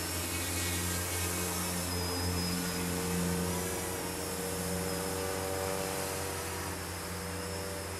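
Mini Tricopter's small electric motors and propellers humming steadily in flight, their tone swelling and easing slightly with throttle, over a faint high whine.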